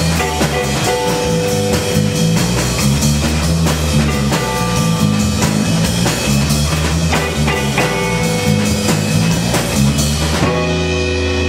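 Live rock band playing an instrumental passage on electric guitar, electric bass and drum kit. The drum hits stop near the end while the guitars keep sounding.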